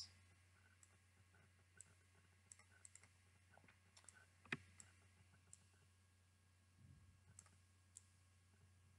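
Faint, scattered computer mouse clicks while shapes are dragged around a slide, with one louder click about four and a half seconds in, over a low steady hum.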